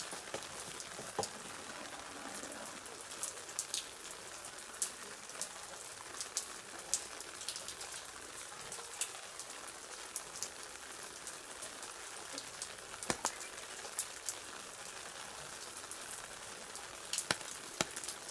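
Steady rain falling, with irregular drops tapping sharply close by.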